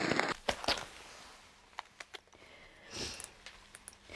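Fabric rustling and a few light clicks as a camera is handled, then a short sniff about three seconds in.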